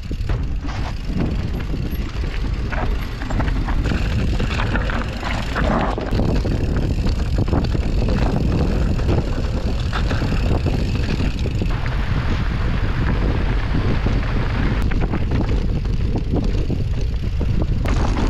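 Mountain bike rolling over a rough trail: steady rumbling noise with frequent rattles and knocks.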